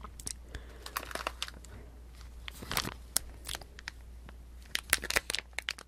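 Clear plastic wrapper of a packaged pastry crinkling as it is handled close to the microphone, in irregular sharp crackles.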